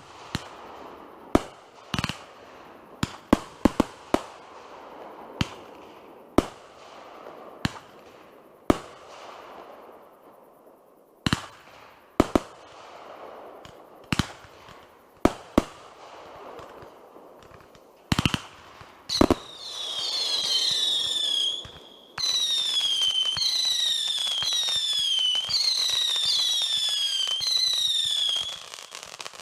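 Fireworks display: a string of sharp bangs from shells bursting, one every second or so. About two-thirds of the way through, a loud run of high whistles takes over, each falling in pitch and overlapping the next over a steady hiss, before stopping near the end.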